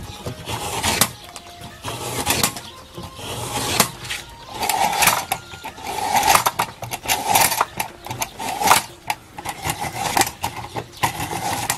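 A manual lever-type meat slicer shaving thin slices off a frozen beef roll. The blade is pushed down in repeated rasping strokes, about one a second.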